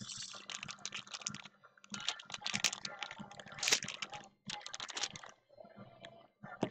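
Wrapped trading card packs crinkling and crackling as they are picked up and handled, a quick run of crisp crackles in clusters with short pauses, over a faint steady low hum.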